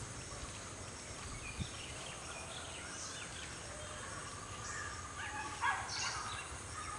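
Outdoor ambience of small birds chirping and calling, with a steady high insect hiss underneath. A brief louder noise about five and a half seconds in.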